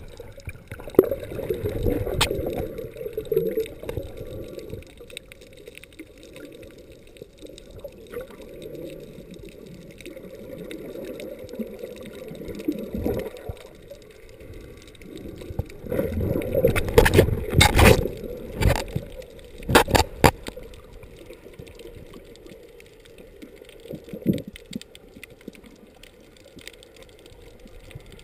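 Muffled underwater water noise picked up through a camera housing: water gurgling and rushing past, busiest in the first few seconds as the diver goes under. About two-thirds of the way through comes a cluster of sharp clicks and knocks.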